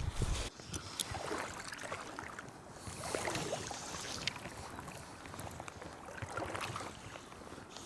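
River water sloshing and splashing in uneven swells, with scattered light clicks. A low rumble cuts off about half a second in.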